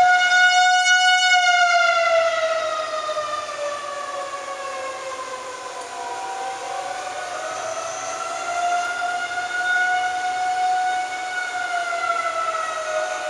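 City outdoor tornado warning sirens wailing: a tornado warning is in effect. The wail slowly sinks in pitch and loudness to a low point about halfway, then swells back up as the sirens' sound comes round again.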